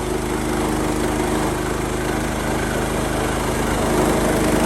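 Small gasoline engine of a Woodland Mills portable bandsaw mill running steadily. It gets slightly louder near the end.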